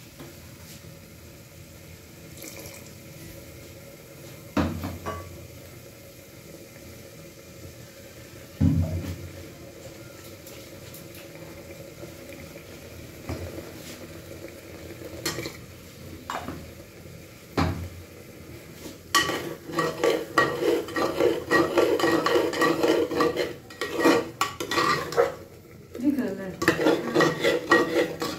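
Steel ladle stirring a thick curry mixture in a metal pot, knocking and scraping against the metal. There are a few separate knocks at first, then quick, continuous clattering stirs for the last third.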